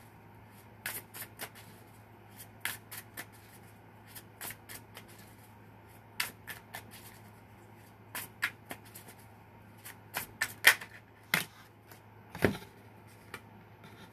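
A tarot deck being shuffled by hand: irregular runs of soft card snaps and riffles in short clusters, with a single dull thump about twelve seconds in.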